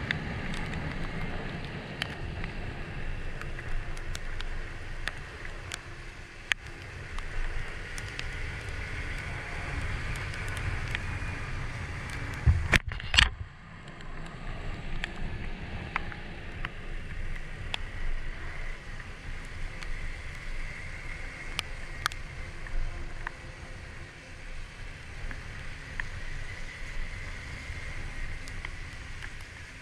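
Onboard riding noise from a Kymco Like 125 scooter on a rain-wet road: a steady rush of wind and wet-road noise over a low rumble, with scattered sharp ticks. Two loud thumps come a little before halfway.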